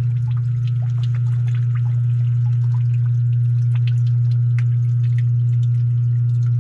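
Sewer ejector pump motor running with a steady low hum as it pumps down the basin, switched on by its newly replaced piggyback float switch, with small drips and splashes of water over it.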